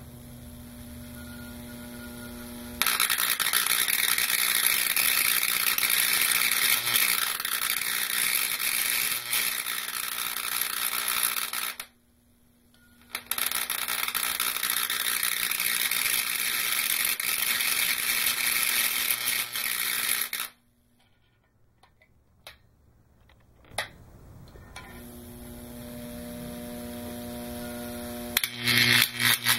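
High-voltage transformer humming, then a 120 kV arc striking between its two insulator electrodes about three seconds in, with a loud crackling buzz. The arc cuts out briefly, runs again, then stops for a few seconds while the hum comes back and rises, and strikes again near the end.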